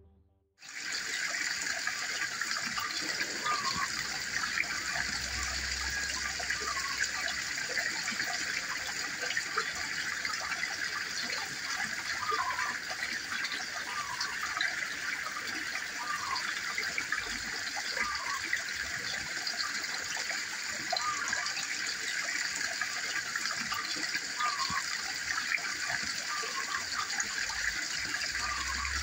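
Steady splashing and trickling of water falling into a garden fish pond.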